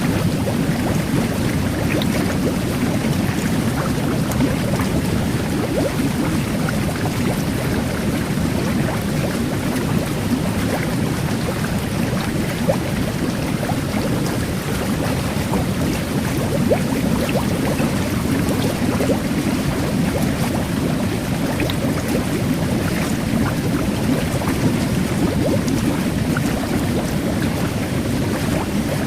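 Jet bath churning water steadily, a low rushing sound with a fine crackling fizz of carbonated micro-bubbles over it.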